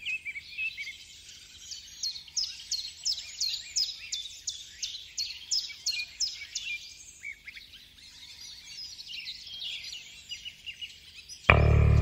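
Birds chirping: a quick series of high calls that sweep downward, about three a second, giving way to more varied chirps. Loud music with heavy bass comes in suddenly near the end.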